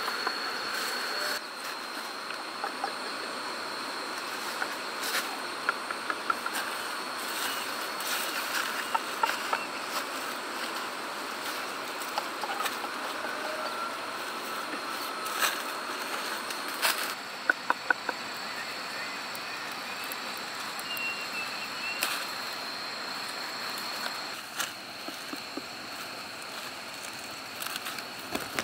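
Insects droning with a steady high-pitched tone over a light hiss, with scattered sharp clicks and knocks, including a quick run of clicks about seventeen seconds in.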